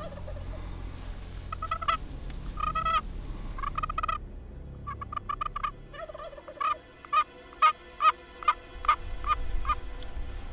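Turkey yelps run on a friction pot call with a wooden striker. Three short calls come first, then a run of about a dozen evenly spaced yelps, two to three a second, loudest in the middle of the run.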